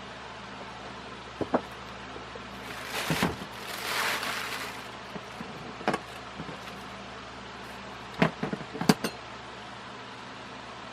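Hardware being handled during ceiling-fan assembly: scattered sharp clicks and clinks of small parts and tools, with a cluster of them near the end, and a noisy scraping rustle lasting about two seconds a few seconds in. A steady low hum runs underneath.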